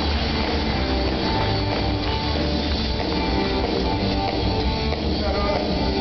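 Live rock band playing with guitars and drum kit, heard from within the crowd in a large hall.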